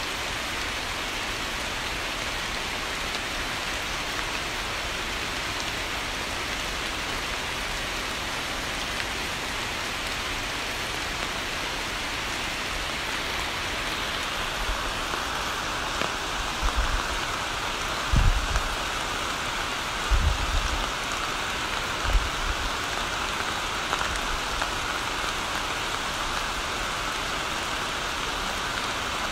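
Steady rain falling on a pool of water, an even hiss. Several short low thumps come a little past halfway through.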